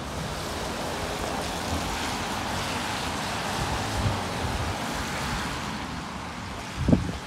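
Steady hiss of a wet city street, swelling over the middle few seconds and easing off, with low thumps of wind buffeting the microphone near the end.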